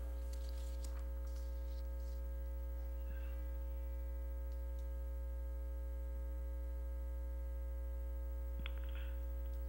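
Steady electrical mains hum, a low buzz with a stack of fainter steady overtones above it and a couple of tiny ticks.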